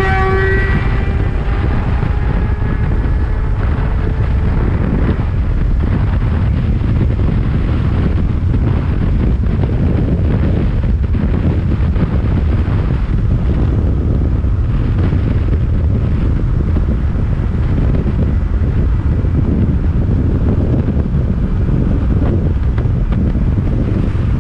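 Heavy wind buffeting on the microphone of a moving motorcycle. A high, evenly pitched motorcycle engine note climbs slightly over the first few seconds and then fades under the wind.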